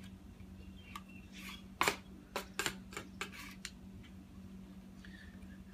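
Flat metal scraper scraping cooled HDPE plastic residue off the heating plates: a quick series of short, sharp scrapes between about one and four seconds in.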